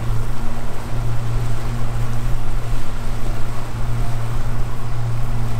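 Yamaha outboard motor running steadily at cruising speed, a constant low drone, under the rush of wind and water as the boat moves.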